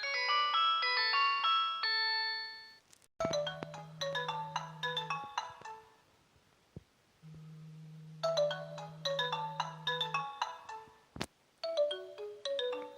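Nokia mobile phone ringtones, several short electronic melodies of quick chiming notes played one after another. Each tune cuts off abruptly for the next, once about three seconds in and again near eleven seconds, and a steady low hum sits under two of the phrases in the middle tune.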